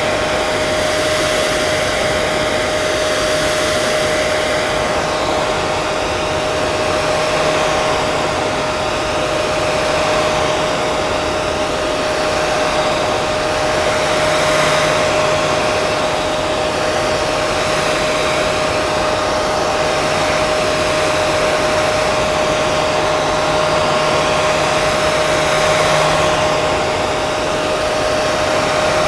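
Hair dryer running steadily: a constant rush of blown air with a steady motor whine.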